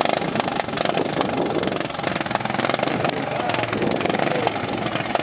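Racing lawn tractor engines running steadily, with voices in the background.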